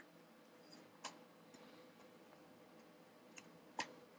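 Four small sharp clicks and knocks from the replacement iMac optical drive and its cable being handled and fitted at the drive bay, the loudest near the end, over a faint steady hum.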